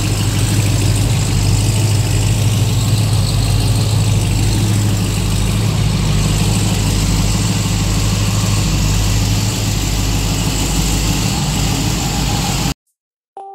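Ram 1500 TRX's supercharged 6.2-litre V8 idling steadily, heard at the twin exhaust tips. It cuts off suddenly near the end.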